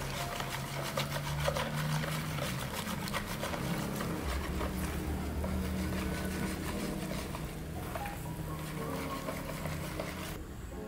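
Metal wire whisk beating flour into a runny egg batter in a plastic bowl: a fast, steady run of clicks and swishes as the wires strike the bowl and churn the batter.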